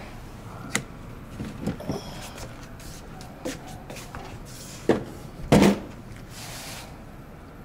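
Irregular knocks and clunks of things being handled in a kitchen, a handful of them spread through the stretch, the loudest about five and a half seconds in, followed shortly by a brief hiss.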